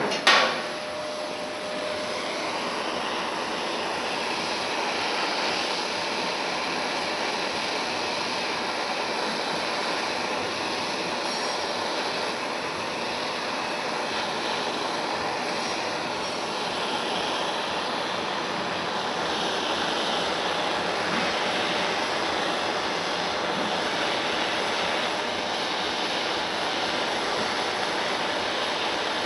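A sharp pop right at the start, then a gas torch flame burning with a steady rushing hiss, heating the metal for body-solder tinning of weld seams.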